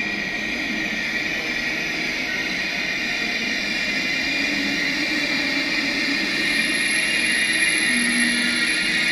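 Passenger train running along the track: a steady rolling noise with a high whining tone, growing gradually louder.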